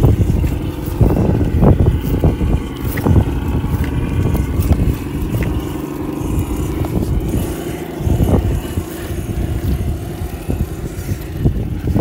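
Radio-controlled scale rock crawlers working slowly over rocks, including a Traxxas TRX-6 6x6: a steady whine of electric motor and gears under low rumble, with scattered knocks and scrapes of tyres and chassis on stone.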